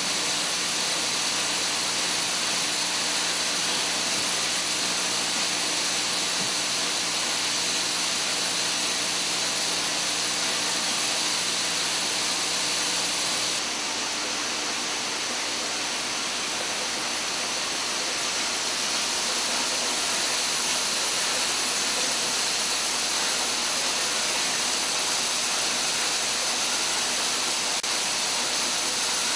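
Automatic syringe assembly machine running: a steady hissing machine noise with a faint low hum under it, the hum stopping and the sound shifting abruptly about halfway through.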